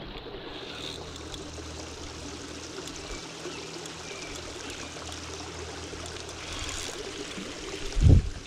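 Steady rushing outdoor noise like flowing water, with a faint low motor-like hum underneath. A short loud low thump comes near the end.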